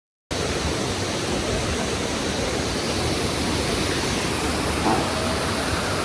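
Waterfall of water crashing down close by, a loud, steady rush that cuts in abruptly just after the start.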